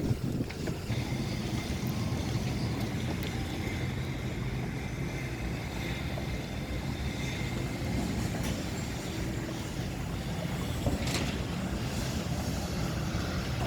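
Steady road traffic noise: a low hum of vehicles running, with a couple of faint short knocks.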